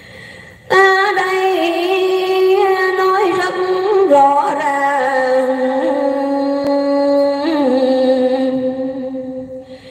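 A woman singing a Vietnamese poem close into a handheld microphone: long drawn-out notes with no clear words, stepping down in pitch a few times. It begins under a second in and fades near the end.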